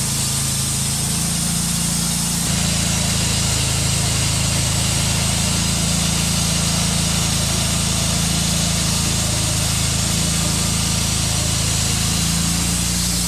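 Wood-Mizer portable band sawmill running, its engine driving the band blade through a maple burl. About two and a half seconds in the sound steps up and grows slightly louder as the cut takes more load.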